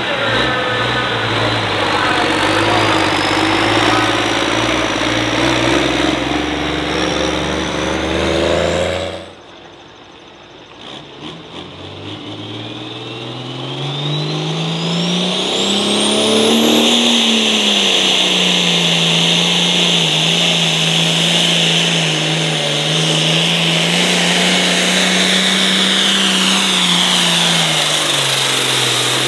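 Turbocharged diesel pulling tractor engine running hard under load. After an abrupt cut about nine seconds in, a second run starts low, the engine note climbs with a rising turbo whistle, holds at high revs, then drops near the end.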